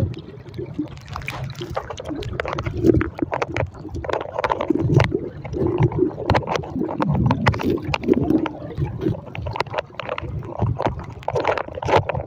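River current heard underwater through a phone's waterproof case: muffled gurgling and rushing, with many small sharp clicks and knocks throughout.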